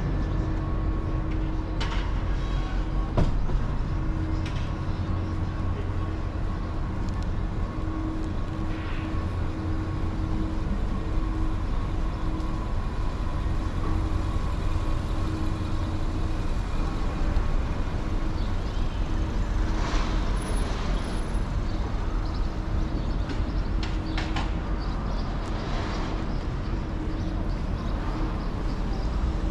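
Downtown street traffic: a steady low rumble of vehicle engines. A steady hum runs through about the first half, with scattered light clicks throughout.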